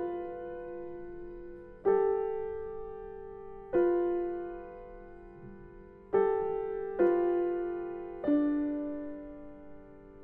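Slow, sparse piano music: six chords struck a second or two apart, each left to ring and fade before the next.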